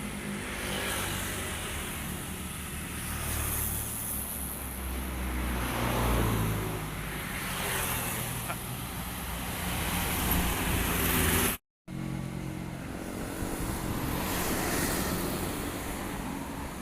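Road traffic, most likely buses: a low engine rumble with vehicles passing close, swelling about six seconds in, again just before a brief cut, and again near the end. No horn melody sounds.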